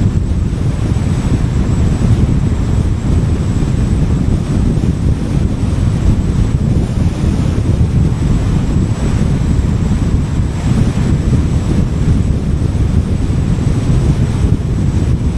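Steady wind and road noise from a car driving along a highway, heard as a loud low rumble of wind buffeting the microphone.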